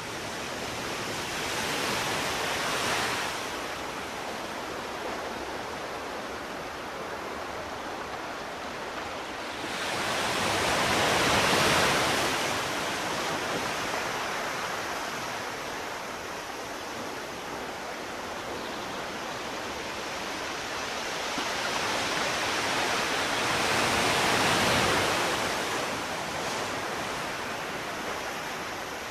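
Sea waves washing onto a shore: a steady rush of surf that swells three times as waves break, roughly ten seconds apart, the biggest about a third of the way in.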